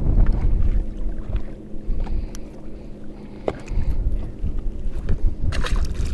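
Wind gusting on the microphone, easing about a second in, over a faint steady hum. Scattered small clicks and taps come from a crappie being unhooked from a jig by hand, with a quick cluster of sharper clicks near the end.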